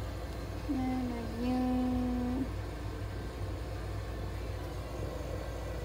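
A person's drawn-out, humming call to the cat, held on one pitch for almost two seconds about a second in, over a steady low rumble.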